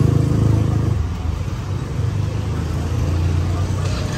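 Street traffic: a motor vehicle engine running close by, loudest at first and fading after about a second, then a steady low traffic rumble.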